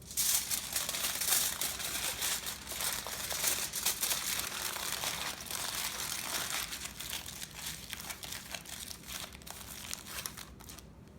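Aluminum foil crinkling and crackling irregularly as it is folded and wrapped by hand, dying away shortly before the end.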